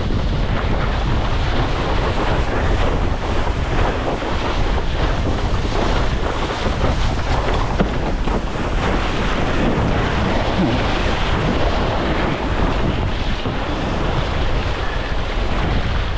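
Strong wind buffeting the microphone of a camera mounted on a sailing windsurf rig, with water rushing and splashing past the board over choppy water. The noise is loud and steady throughout.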